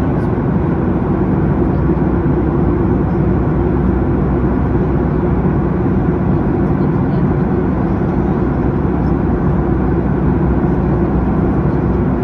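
Steady cabin noise of a Boeing 737 MAX 8 in cruise, heard inside the cabin beside the engine: a constant low rumble of airflow and the CFM LEAP-1B engines.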